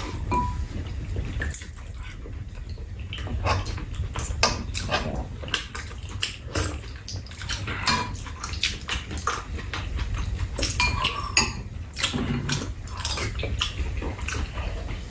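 Metal spoons clinking and scraping against ceramic bowls and a metal tray during a meal: many scattered light clicks, a few ringing briefly, with soft eating sounds between them.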